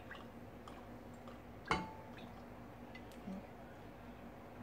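An olive oil bottle handled just after pouring: faint scattered ticks and one sharp click a little under two seconds in, over a low steady hum.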